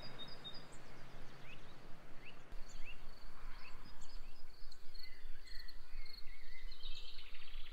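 Countryside ambience: insects trilling steadily, with short bird chirps now and then and a few warbled bird phrases in the second half.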